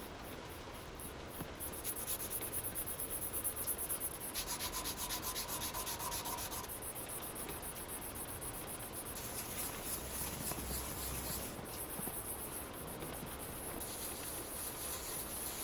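Hand abrasive scrubbing of the rusty steel trowel, rubbed back and forth in quick even strokes, about five a second.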